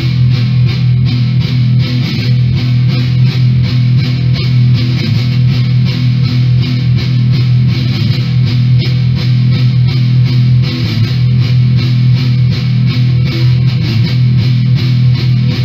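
Background rock music led by electric guitar, loud and steady throughout, cutting off suddenly at the end.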